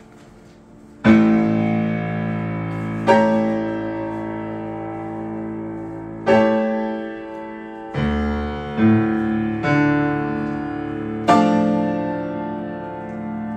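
Yamaha grand piano played with loud, full chords: the first struck about a second in, then six more every one to three seconds, each left ringing and fading.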